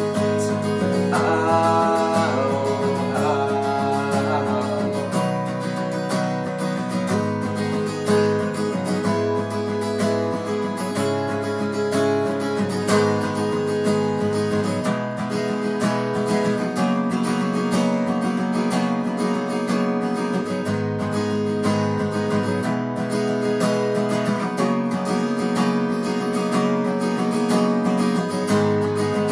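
Taylor steel-string acoustic guitar strummed steadily, playing on its own through an instrumental passage of a folk song.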